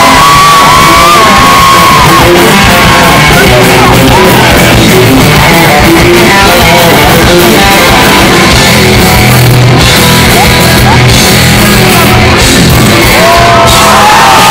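Live rock band playing loudly, heard from within the audience, with long held high notes near the start and again near the end.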